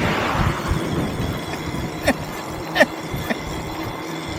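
Wind rushing over the microphone and rolling rumble while riding along a road, with two short high chirps about two and three seconds in.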